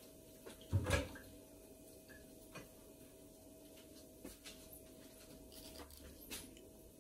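Kitchen handling noises: a heavy knock about a second in, then scattered light clicks and taps, over a faint steady hum.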